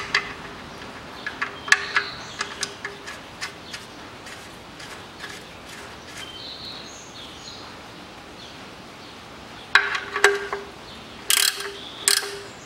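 Sharp metallic clicks and ticks of tools on the oil drain plug as it is screwed back into the engine's oil pan. Louder clusters of clicks come near the end as a wrench tightens the plug.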